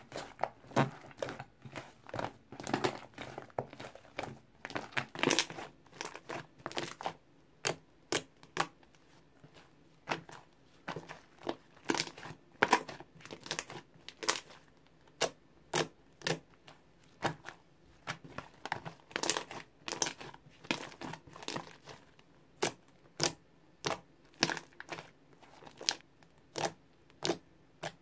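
Hands kneading and squeezing a soft, foamy slime, making a dense run of small wet pops and clicks. Later, the fingers press and poke into it, giving separate sharp pops about two a second.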